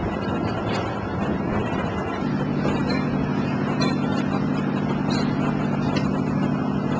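An engine running at a steady speed, a low even drone that sets in about two seconds in, over a constant noisy outdoor background.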